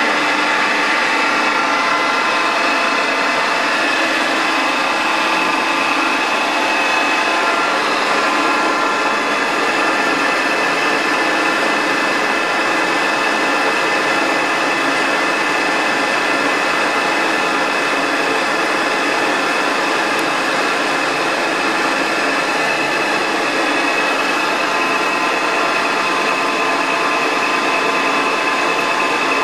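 EST Ticino 520 metal lathe running steadily while turning a small metal shaft, a continuous machine sound with a steady high whine over it.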